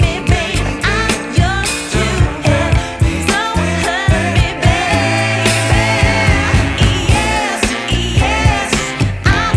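Background music: a pop song with a singing voice over a steady drum beat and bass.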